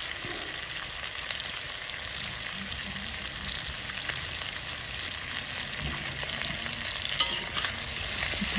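Pork pieces with onion, chillies, garlic and ginger sizzling in rendered pork fat in a cast-iron kadai, a steady frying hiss with small crackles. Near the end a metal slotted spatula starts stirring, scraping against the pan.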